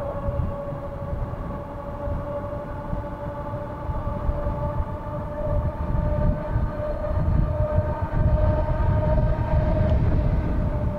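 Ariel Rider Kepler e-bike running at speed: a steady whine whose pitch rises slightly as speed climbs, over low wind rumble that grows louder in the second half.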